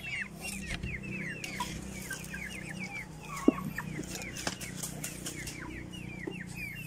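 Chicken chicks peeping nonstop, many short falling peeps a second overlapping one another. A single sharp click about three and a half seconds in.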